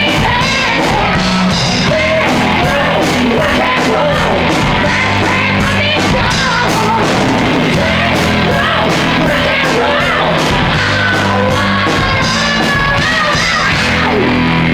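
Loud rock music: a yelled, shouted vocal over a driving drum beat and a full band.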